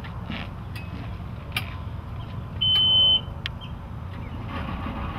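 A single steady electronic beep, about half a second long, from the warning horn of a Mercury 200 EFI outboard as the ignition key is switched on: the horn's self-test before starting. A few light knocks and a low steady rumble surround it.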